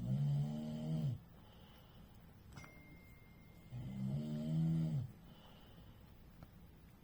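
Someone snoring: two long, low snores about three and a half seconds apart.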